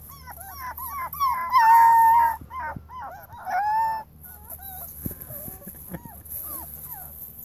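Akita puppies whining and yipping while they play-fight: a quick string of short rising-and-falling whines, then a longer drawn-out whine about a second and a half in, the loudest, and another near four seconds in. The second half is quieter, with scattered short yips and a soft thump.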